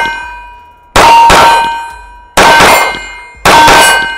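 Slow, deliberate 9mm shots from a ported CZ Shadow 2 Compact pistol, about one a second, each one answered by a steel target ringing with a clear metallic tone that dies away before the next shot.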